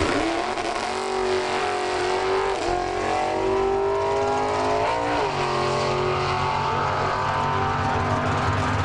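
Sedan drag-racing car's engine at full throttle, accelerating down the strip from the launch. Its note climbs and drops sharply at two gear changes, about two and a half and five seconds in.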